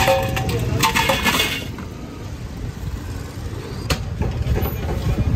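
Crushed ice poured from a plastic bucket into a steel pot, a clattering rattle for about a second and a half, then a single sharp click a little before the end. A low traffic rumble runs underneath.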